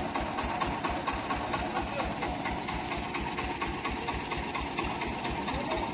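An engine running steadily at idle, with an even, rapid chug.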